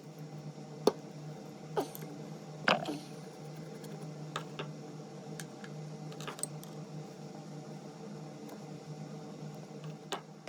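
Scattered light clicks and knocks of metal hand-plane parts being handled and set down on a workbench, over a steady low hum.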